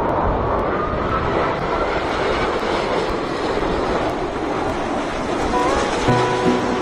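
Airbus A380 airliner on landing approach, its four jet engines giving a loud, steady rushing noise with a faint whine that rises slightly over the first couple of seconds. Music with plucked notes comes in near the end.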